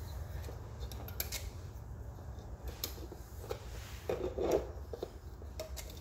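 Rubber bands being stretched onto the plastic pegs of a rubber-band loom: scattered light clicks and snaps of bands, fingers and hook against the plastic, with one louder rustle about four seconds in, over a steady low hum.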